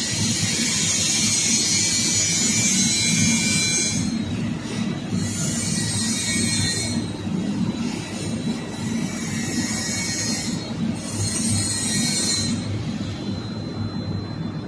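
Automatic cotton candy vending machine running, a steady mechanical whir from its spinner and robotic arm, with a high hiss that cuts in and out several times.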